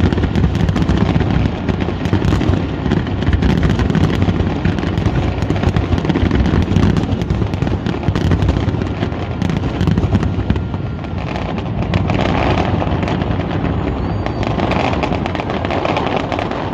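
Fireworks display: a dense, continuous barrage of aerial shell bursts, booms and crackle. In the second half the deep booms thin out and the crackling comes forward.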